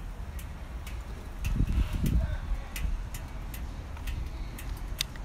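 Handheld microphone noise with no engine running: a low rumble that swells about one and a half seconds in, and scattered light clicks.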